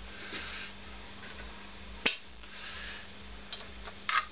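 Light clicks and taps of engine parts being handled on the bench: one sharp click about two seconds in and a quick cluster of clicks near the end, over a faint steady hum.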